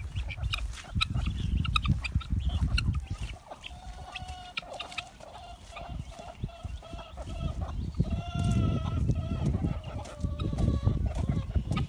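Chickens clucking, with drawn-out calls held for about two seconds around four seconds in and again around eight seconds in, over a low rumble.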